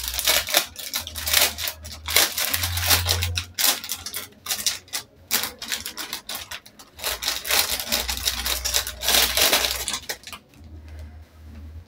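Clear plastic packet of baby socks crinkling and crackling as it is handled and opened, dying down near the end.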